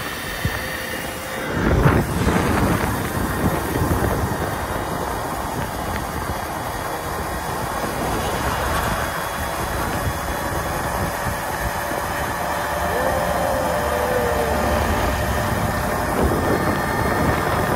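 Steady rushing wind and tyre noise from riding an electric minibike on asphalt, with a low rumble and a louder jolt about two seconds in.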